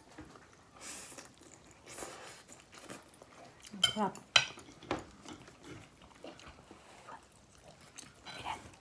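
A person eating with knife and fork: soft chewing and light clicks of cutlery against a plate, with a brief sound of her voice and a sharp click about four seconds in.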